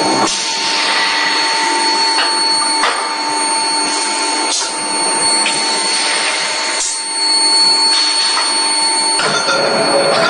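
Forging-line machinery noise around an electric screw press: a steady, loud rushing hiss with a steady whine, broken by several sharp knocks about two seconds apart.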